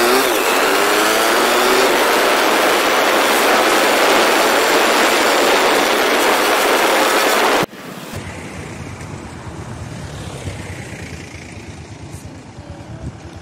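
Wind blasting the microphone on a moving Bajaj Platina motorcycle, with the engine's pitch rising as it pulls away at the start. About eight seconds in it cuts off suddenly to a much quieter, steady background.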